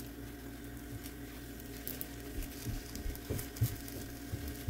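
Faint soft thuds and taps as gloved hands turn and shift folded roti on an electric griddle, over a low steady hum.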